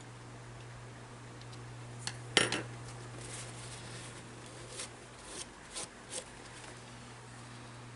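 Small metal motor parts clinking and rattling as they are handled and set down on a workbench. There is one louder clatter about two and a half seconds in, then a few lighter clicks, over a steady low hum.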